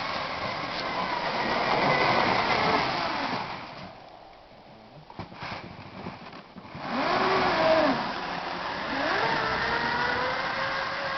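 Electric-converted Ski-Doo MX Z snowmobile running, its motor and drive whining with the pitch rising and falling as it speeds up and slows. It goes quieter for a couple of seconds in the middle, then comes back loud with quick rises and falls in pitch.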